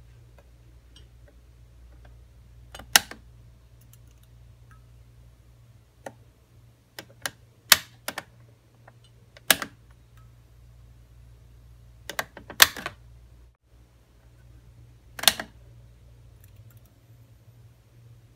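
Fluorescent light fixture with a Panasonic Palook FL20SS 18 W tube starting up: about nine sharp clicks at irregular intervals, some in quick pairs, as it is switched on and the tube strikes, over a steady low hum.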